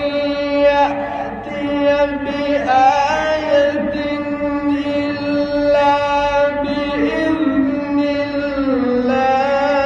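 A male Quran reciter chanting in the melodic mujawwad style. He holds long, ornamented notes that slide and waver in pitch, with no break.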